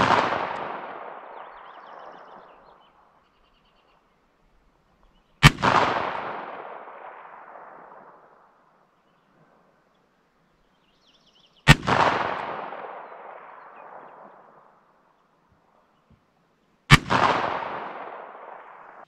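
Three revolver shots about five to six seconds apart, each trailing a long echo that dies away over two to three seconds, opening on the fading echo of an earlier shot. They are .38 Super Auto cartridges fired from a Smith & Wesson Model 686-6 .357 Magnum revolver.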